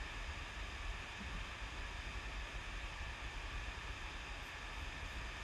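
Electric fans running steadily, a constant hissing rush with a low rumble underneath. They sound as if they are running hard, as fans would on a very hot day.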